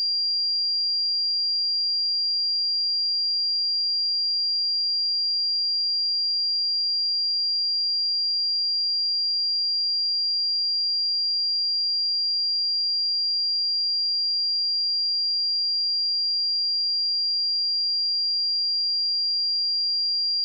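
A single steady 4768 Hz sine-wave test tone, a constant high-pitched pure tone at an unchanging level.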